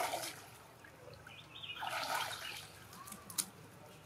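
Young macaques splashing in a pool of water: one splash dying away as the sound opens and a second about two seconds in, with a few short high chirps in between.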